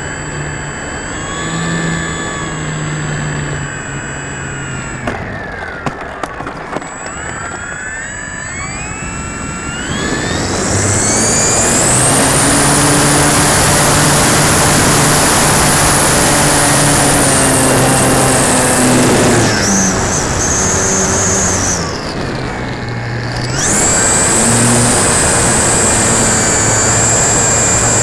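Durafly Tundra RC plane's electric brushless motor and propeller heard from on board: a part-throttle whine whose pitch slides down and back up, then about ten seconds in it winds up to a loud, high full-throttle whine for the takeoff run. The whine dips twice briefly near the end and comes back up to high power.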